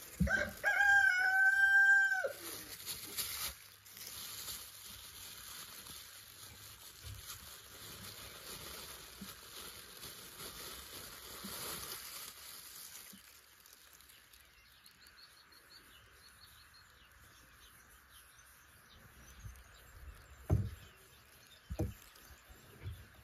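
A rooster crows once, about two seconds long, just after the start. Faint bird chirps follow later, and near the end come a few sharp knocks as a hand touches the blades on the wooden table.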